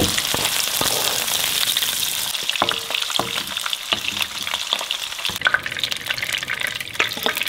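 Hot oil sizzling and crackling in a nonstick frying pan as petai (stink beans) fry. A metal ladle clicks against the pan as the beans are scooped out, and the sizzle eases a little about five seconds in.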